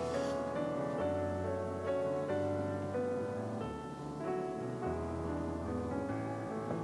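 Background piano music: a slow melody over low held bass notes.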